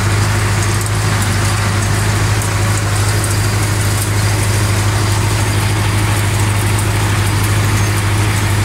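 Russian-built tractor's engine running steadily under load with a constant low drone, heard from inside the cab while it pulls a Krone twin-rotor rotary hay rake.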